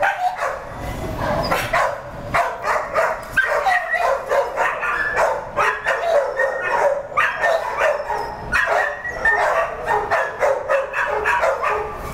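Dogs barking in shelter kennels, the barks coming several times a second without a break.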